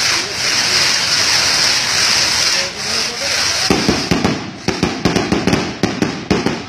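Fireworks: a loud steady hiss of burning pyrotechnics for the first few seconds, then rapid crackling pops from about four seconds in.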